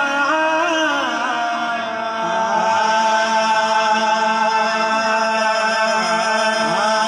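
Live qawwali singing: voices holding long notes that bend up and down in pitch over the music.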